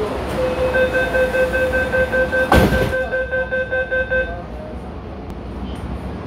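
MTR A-train door-closing warning beeping in rapid even pulses for about four seconds, with a loud thump midway through, over the rumble of the train. The beeping then stops and the train's steady noise carries on.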